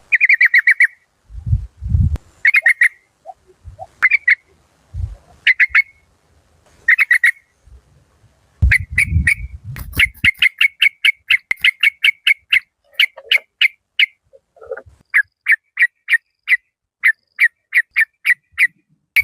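Yellow-vented bulbul calling: short clipped phrases a second or two apart, then long fast runs of sharp 'rik-rik-rik' notes at about four a second. A few dull low thumps sound among the first phrases.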